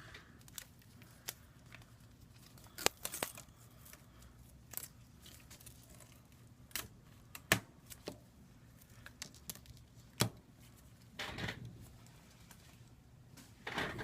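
Hands working on an opened iPad 2: scattered light clicks and taps of small tools and parts, with a few sharper clicks and two short peeling or rustling sounds near the end.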